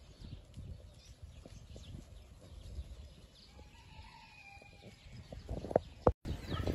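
Boer goats walking on grass: faint, scattered hoofsteps, with a faint short animal call about halfway through and two sharper knocks near the end.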